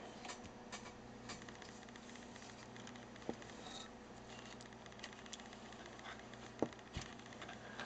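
Faint, irregular light ticks and a few small knocks over a low, steady hum.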